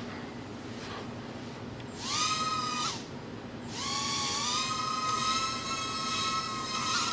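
Estes ProtoX nano quadcopter's tiny electric motors and propellers whining. They spin up with a rising pitch for about a second and cut off, then spin up again about a second later and hold a steady high whine.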